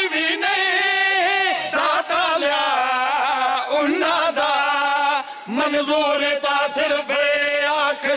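Male voice singing a Shia devotional qasida in Punjabi, with long held notes that slide up and down, and a short break about five and a half seconds in.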